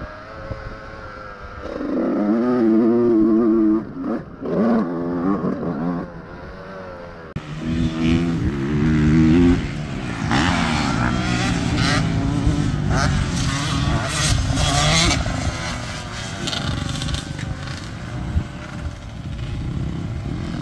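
Honda CR125R two-stroke single-cylinder motocross engine ridden hard, its pitch repeatedly rising and falling as the rider opens and closes the throttle through the gears.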